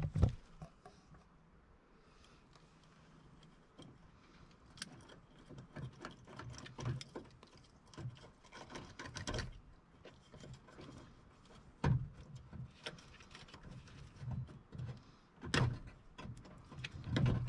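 Hand-work on an old car door speaker: scattered clicks, taps and light knocks of fingers and a small hand tool on the speaker's metal frame, its wire terminals and the door panel, as its wires are worked loose through the speaker hole. The sharpest knocks come about nine and a half, twelve, fifteen and a half and seventeen seconds in.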